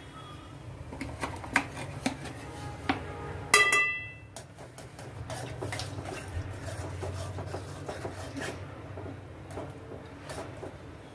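A spoon clinking and scraping against an aluminium pot of milk and cream as it is stirred, with small scattered knocks and one bright ringing clink about three and a half seconds in.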